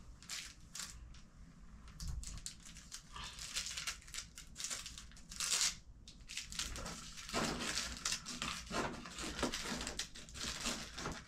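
Packaging wrapper being crumpled and handled by hand: irregular crinkling and rustling with small crackles.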